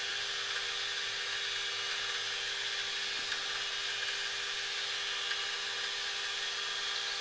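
A 54-year-old Brackenbury & Austin metal lathe running with its chuck spinning: a steady mechanical whine of motor and headstock gearing.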